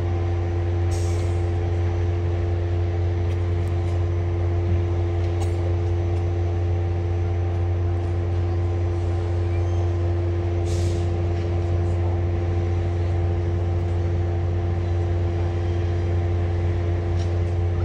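Alco RS-1 diesel locomotive's engine running steadily with a low drone and a few steady humming tones over it. Four short air hisses come through it, about a second in, around five seconds, around eleven seconds and near the end.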